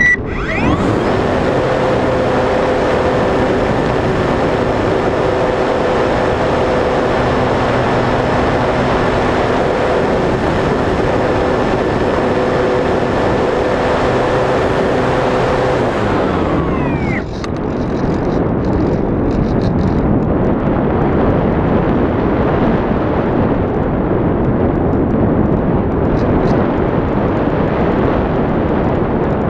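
A model glider's motor and propeller run at a steady pitch, heard from a camera on the aircraft under heavy wind noise. About 17 seconds in, the motor spins down with a falling pitch and stops, leaving only wind rushing over the microphone as the model glides.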